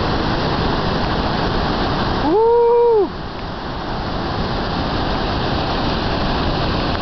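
Floodwater rushing steadily in a continuous noise. About two seconds in, a loud pitched tone rises, holds for under a second and falls away, and the water noise drops out beneath it.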